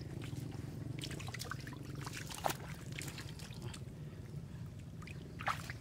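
Shallow muddy water trickling and splashing around hands working a wet fishing net, with a few short, sharp splashes, the clearest about halfway through and near the end.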